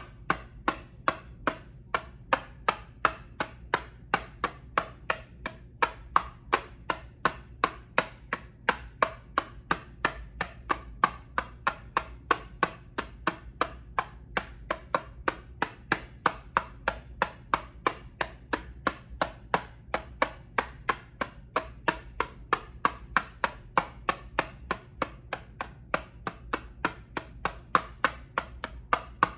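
Sharp taps on an eyeshadow palette, steady and evenly spaced at about two to three a second.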